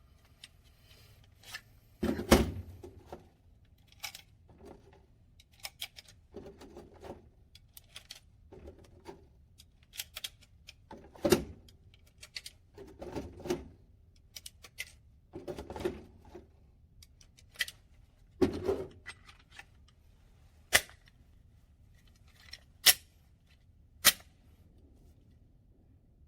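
Irregular scattered clicks and knocks, some in short clusters, with a few sharper, louder cracks spread through, three of them close together near the end.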